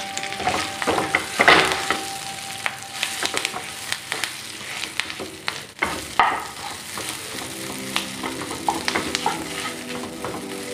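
Grated potato sizzling in hot oil in a non-stick pan, stirred and scraped with a wooden spatula. Irregular clicks and scrapes of the spatula on the pan, with louder ones about one and a half seconds in and again about six seconds in.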